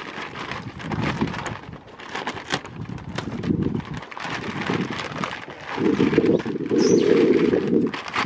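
Scissors snipping a thin plastic pattern sheet in a run of short cuts, with the sheet crackling and rustling as it is handled against the windshield.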